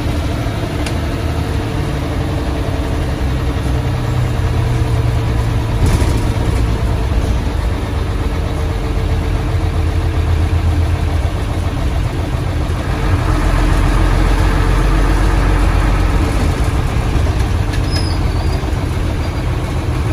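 Old Hino diesel bus engine running, heard from inside the non-AC cabin, with its rumbling 'snoring' exhaust (knalpot ngorok). About two-thirds of the way through, the engine grows louder and deeper, as under load.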